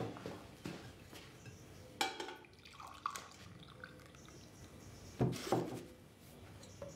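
Coffee poured from a glass coffee-maker carafe into a mug, followed a little after five seconds by two knocks as the carafe is set down on the table.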